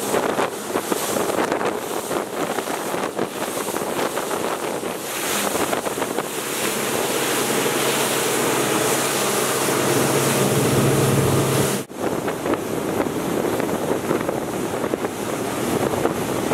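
Center-console fishing boat running at speed over choppy water, with wind buffeting the microphone, the wake and spray rushing, and the outboard engine humming underneath. The engine hum grows louder past halfway. The sound cuts out for an instant about twelve seconds in.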